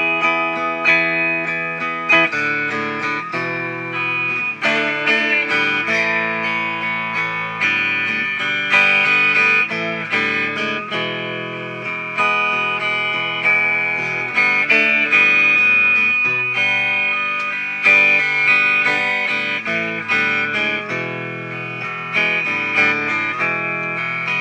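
Instrumental music led by guitar, with notes plucked and strummed over a steady accompaniment.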